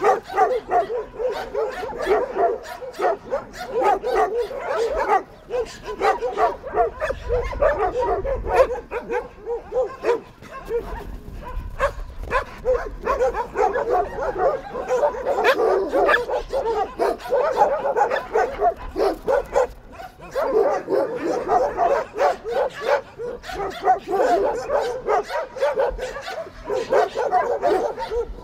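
A pack of dogs barking and yapping over one another, the calls coming thick and fast without a break.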